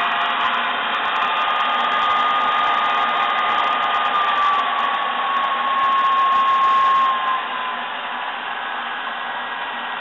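Circa-1915 Sturtevant upright vacuum cleaner running, its electric motor and fan giving a steady whirring hum with a whine on top. The whine slides a little lower about four seconds in, and the sound drops in level about seven seconds in.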